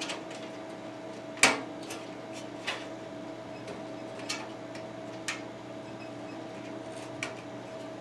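Metal I/O shield being pressed and snapped into the back of a PC tower case: a handful of sharp clicks and snaps, the loudest about a second and a half in, over a steady hum.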